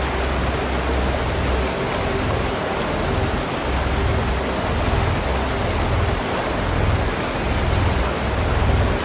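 Rushing glacial mountain torrent: a steady hiss of water pouring over rocks, with soft low bass notes of background music underneath.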